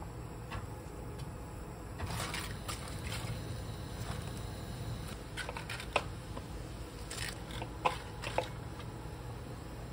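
Wet steamed vegetables and cabbage leaves handled in a stainless steel steamer basket, soft squishing and rustling with a few sharp clicks of metal and glass, the last ones as a glass lid goes onto the pot near the end. A steady low hum runs underneath.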